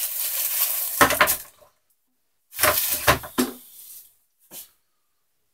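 Plastic packaging bags of filter media crinkling and rustling as they are handled, with two dull knocks of plastic parts against the desk, one about a second in and one midway, and a short click near the end.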